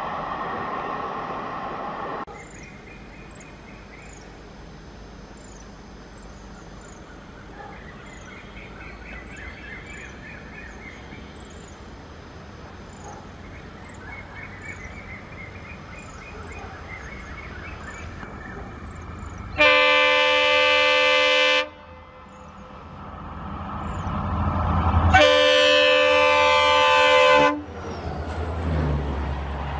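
EMD WDP-4D diesel locomotive sounding its horn in two loud blasts of about two seconds each, a few seconds apart. Under them, the rumble of its two-stroke diesel engine builds as it approaches at speed and passes close by near the end.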